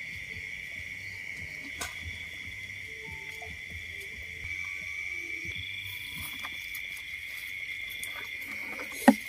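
A chorus of night insects, crickets, trilling steadily and high, with a second, higher-pitched insect joining about halfway through. A single sharp knock comes near the end.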